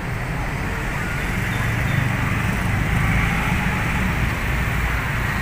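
Steady low rumble of road traffic on the overpass directly above, with no train passing.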